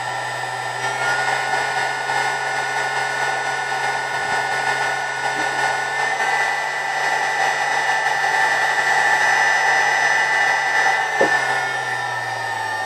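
Spindle motor running at high speed on a variable-frequency drive: a steady rushing hiss with several whine tones. The whine steps up a little about a second in and again around six seconds as the drive changes frequency, and near the end a tone starts gliding down as the spindle slows.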